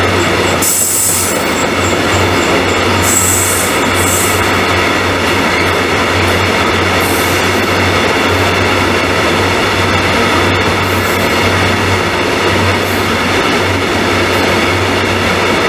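Open coal wagons of a long freight train rolling past, a loud steady rumble of steel wheels on the rails. Brief high wheel squeals come twice in the first four seconds.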